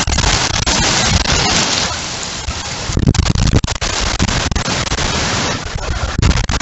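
Heavy rain and gusting wind in a severe storm, the wind rumbling on the microphone and the loudness surging with each gust.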